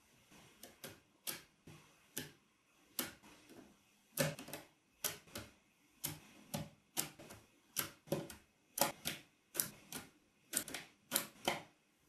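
Small neodymium magnetic balls clicking as strips of them snap onto a magnet-ball wall. Sharp, separate clicks come sparsely at first and then more often, about one to two a second, from about a third of the way in.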